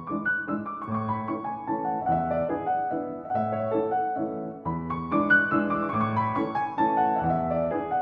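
Background piano music: a melody of separate notes over a low note that recurs every second or so.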